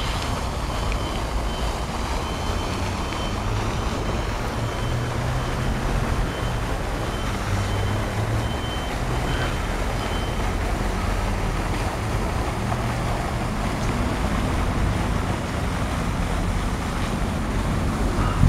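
Steady outdoor background rumble with no clear single source, like wind on the microphone mixed with distant road traffic. A faint, high-pitched intermittent beeping runs through the first half.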